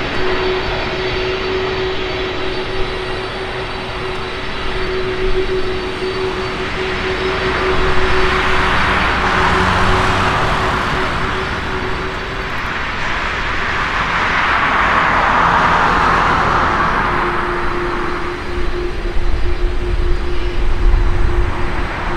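Airbus A330 airliner's jet engines running at taxi power as it rolls by: a steady whine under a broad rush of jet noise that swells and fades twice.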